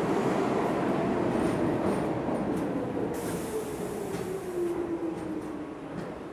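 New York City subway train slowing along the platform: the rumble of wheels on rail, with the electric motors' whine falling steadily in pitch as it brakes.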